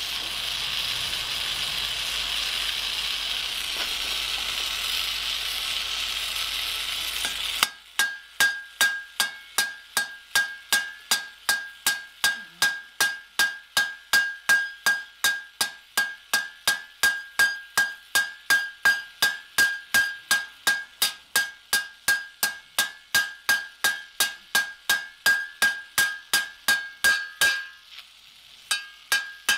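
A small oxy-fuel hand torch hisses steadily, cutting off after about seven and a half seconds. A hammer then peens the torch-heated rivet on the anvil in quick, even blows, about two and a half a second, each with a high metallic ring, pausing briefly near the end and then resuming.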